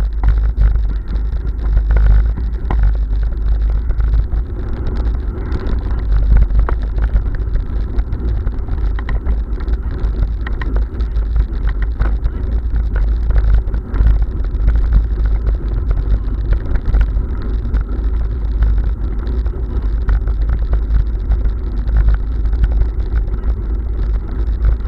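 Bicycle rolling fast over cobblestones, its tyres and frame rumbling and rattling steadily, with many small clicks and knocks from the stones.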